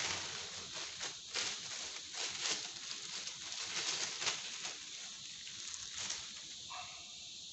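Clear plastic wrap crinkling and crackling as it is pulled off a fishing rod section by hand; the crackles stop about six and a half seconds in.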